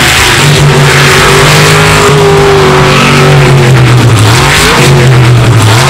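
Jet sprint boat's V8 engine running hard at high revs, the revs dipping twice near the end and picking up again.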